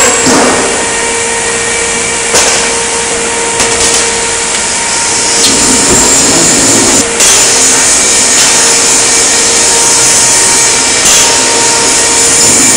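Steady, loud metal-shop machinery with a constant whine, broken by a few sharp metal knocks.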